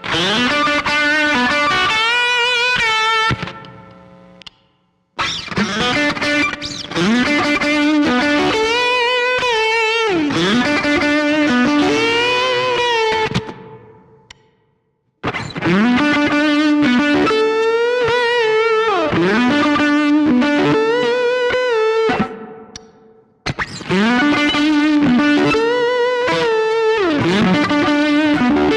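Electric guitar fitted with a neck humbucker, played through an amp: the same short lick four times over, with string bends and vibrato, each take left to ring and fade out before the next begins.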